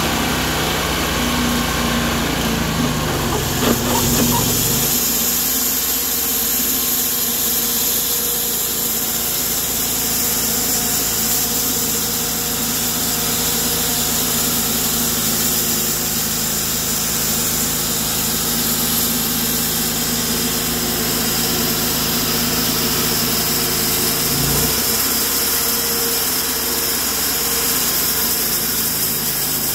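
Cook's 51-inch bandsaw sawmill running steadily while milling a large box elder burl. A short knock and a change in tone come about four seconds in, after which a steady high hiss carries on.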